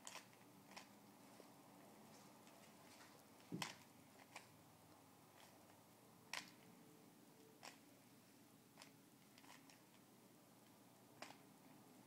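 Rubik's cube being twisted by hand: short plastic clicks of the layers turning, about nine at irregular intervals over near silence.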